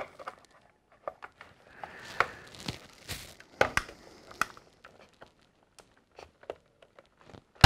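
Hard plastic parts of a Hasbro AT-ST toy walker being pressed and fitted together by hand: scattered clicks and knocks, with the loudest snap near the end.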